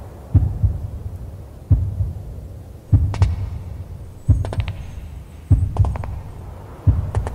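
Slow, deep heartbeat sound, a double thump about every 1.3 seconds. From about three seconds in, clusters of sharp high clicks come in over it.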